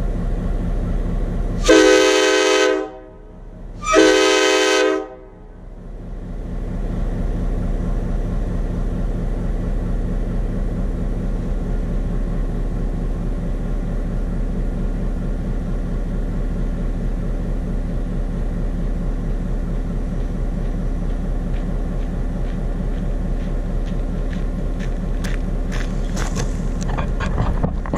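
Nathan K5LA five-chime locomotive air horn sounded in two short blasts about two seconds apart, heard from inside the cab over the steady low drone of the locomotive's idling diesel engine. The owner judges the horn's voice not healthy.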